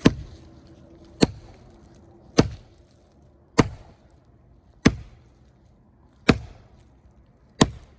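Seven heavy blows struck on a Master Lock three-number combination padlock, evenly spaced about once every 1.2 seconds, each a sharp chopping impact.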